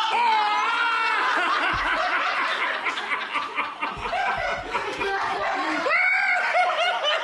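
Several people laughing hard together, opening with high, wavering whoops before breaking into steady laughter.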